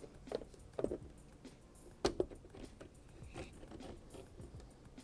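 A CPU water block being handled and set back down onto the processor: a few light clicks and knocks. The loudest two come close together about two seconds in.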